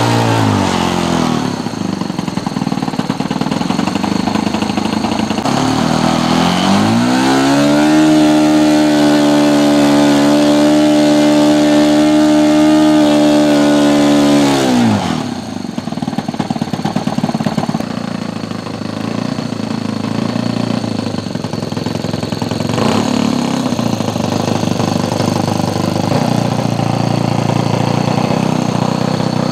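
Combustion engine of a large RC Hawker Hurricane model running. It is throttled down at the start, run up to a high, steady full-power note for about seven seconds, then throttled back abruptly to a low, rough idle for the rest.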